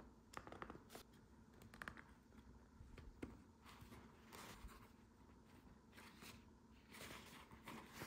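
Faint handling sounds of a gear-lever boot being worked onto its plastic retaining ring: soft rustling of the boot material with scattered small clicks of the plastic parts.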